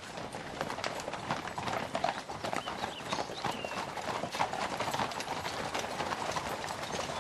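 Hooves of several ridden horses clip-clopping on a dirt track, many hoofbeats overlapping in an uneven run.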